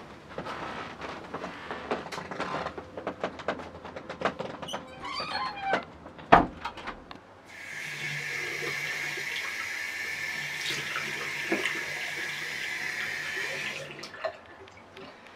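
A run of small knocks and rustles, with one loud thump about six seconds in. Then a bathroom washbasin tap runs, water pouring steadily into the basin for about six seconds before it is cut off near the end.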